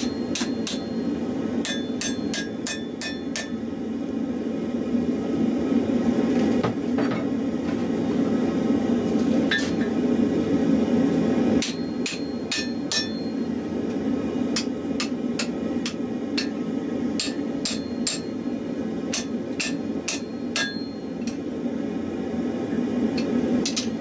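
Hand hammer striking hot steel held in tongs on an anvil, in quick bursts of blows with short pauses between, each strike ringing off the anvil, over a steady low rushing noise.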